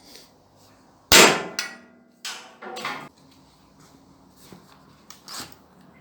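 Metal clanking: one loud clang about a second in that rings on briefly, followed by a few lighter metal knocks.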